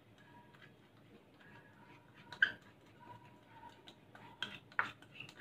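Faint taps and clicks of a glass bowl and spatula as ground sugar is scraped out into a mixing bowl of ghee: one sharp click about halfway through, then several more toward the end.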